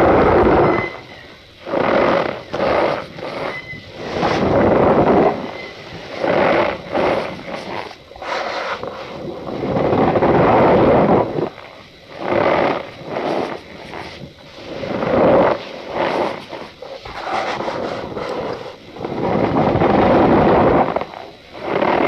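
Cornstarch powder squeezed and crushed by hand close to the microphone, giving squeaky, crunchy bursts every second or two, some short and some over a second long.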